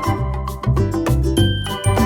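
Background music with a steady beat, bright bell-like chimes over a bass line.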